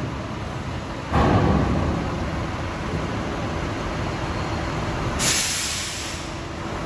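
Large truck manoeuvring: a steady engine rumble that surges suddenly about a second in, then a sharp burst of air hiss from its brakes about five seconds in.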